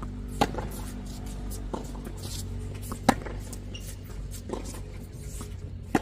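Tennis balls struck by rackets during a rally: sharp pops of ball on strings about every two and a half to three seconds, the loudest about halfway through, with fainter bounces between.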